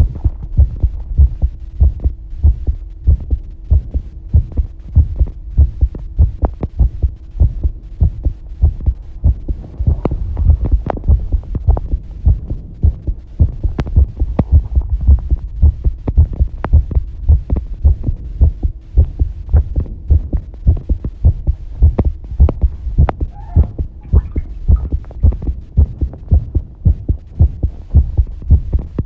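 Close-miked human heartbeat: a regular run of deep, low thumps, with a faint steady hum beneath for most of it.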